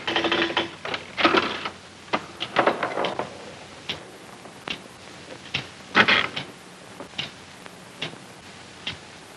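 Early-1940s pinball machine in play: irregular clicks and short rattles of the ball striking bumpers and the scoring mechanism, busiest at the start and again about six seconds in.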